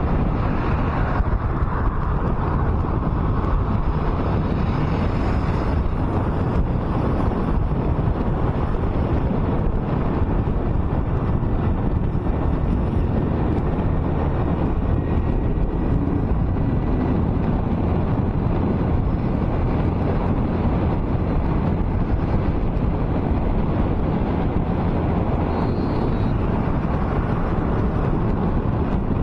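Steady road and wind noise of a car driving on a highway: a constant low rumble with wind buffeting the microphone.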